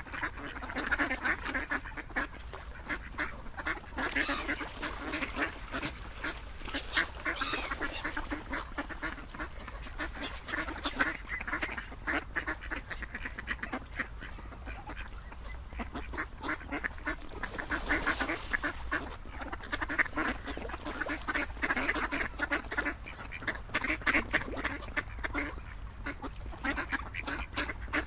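Ducks quacking continuously, with many calls overlapping.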